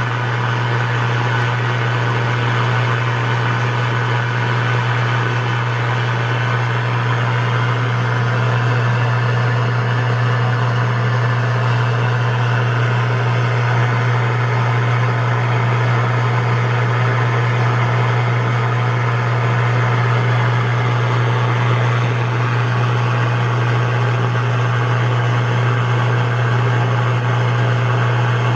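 Power line interference heard through a Yaesu FT-101E shortwave receiver on the 10-meter band: a steady, low, loud buzz over a hiss that does not let up.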